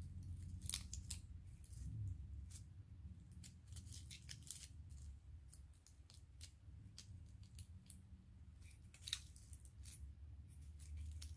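Faint, scattered small clicks and light rustles of small Christmas decorations being handled and set in place among bottle-brush trees, over a low steady hum.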